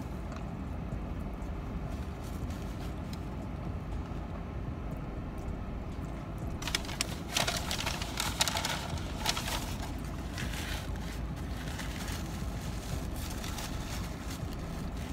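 Foil-and-paper burrito wrapper crinkling in bursts, loudest from about seven to ten seconds in, over a steady low hum inside a car.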